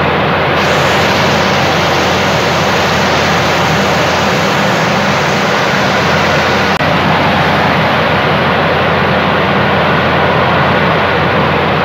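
Water falling thickly onto a shallow puddle on the ground, a steady loud splashing rush.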